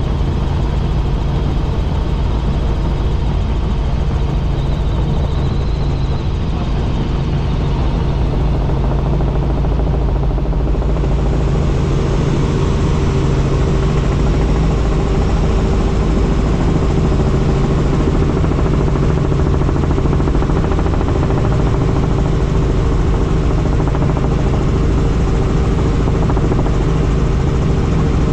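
Helicopter in flight: steady rotor and engine noise over a constant low drone, with no change in power.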